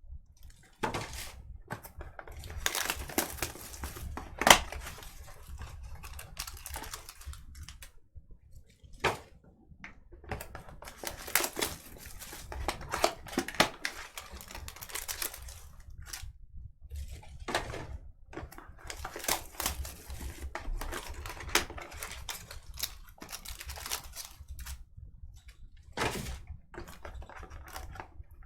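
Sports card boxes and clear plastic card packs being handled and opened: irregular rustling and crinkling of plastic wrap and cardboard, with sharper clicks now and then, the loudest about four and a half seconds in.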